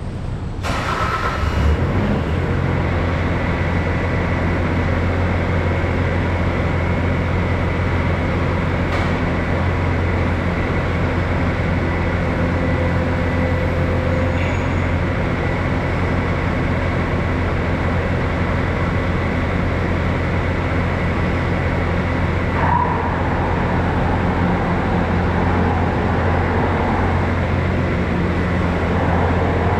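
Bobcat S530 skid steer's diesel engine running steadily, with a short knock about 23 seconds in.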